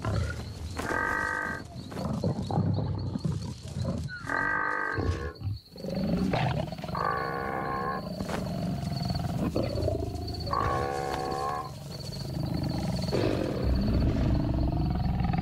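Lions growling as they pull down a wildebeest, with repeated loud, drawn-out wavering calls over a low rumbling growl.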